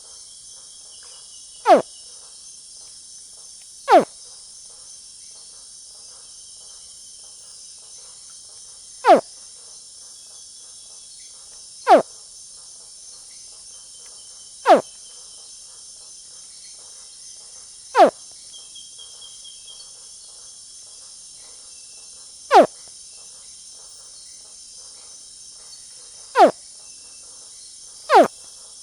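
A young crocodilian gives short chirps that sweep sharply down in pitch, nine of them at uneven gaps of two to five seconds. Under the chirps runs a steady high chorus of crickets.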